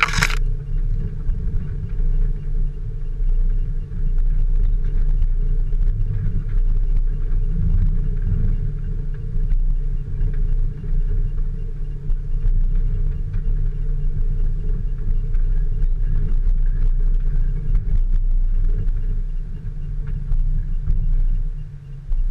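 Steady low rumble of an off-road vehicle driving, with a sharp knock right at the start.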